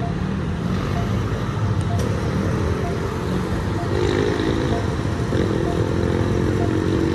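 Railway level-crossing warning signal sounding a short ding about once a second while the barrier arm lowers, over road traffic. A vehicle engine runs closer from about two seconds in.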